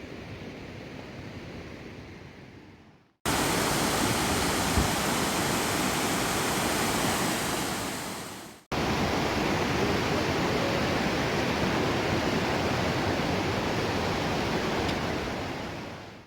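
Rushing water from a mountain waterfall or river, a steady even rush. It comes in three cut-together stretches: a quieter one that fades out about three seconds in, then two louder ones, each starting abruptly and fading away.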